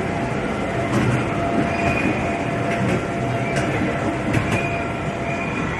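Small caterpillar kiddie-ride train running on its track: a steady rumble and hum, with scattered clicks and knocks from the wheels and cars.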